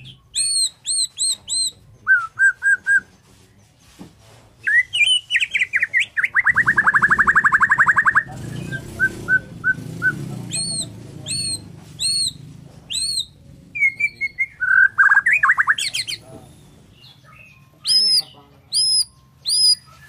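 White-rumped shama (Bornean murai batu) singing: repeated runs of three or four clear, down-slurred whistles, with a fast rattling trill of about a second and a half in the middle.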